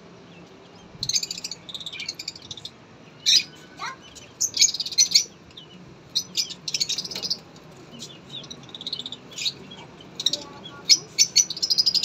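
Lovebirds chirping in short clusters of rapid, high-pitched chirps, a burst every second or two.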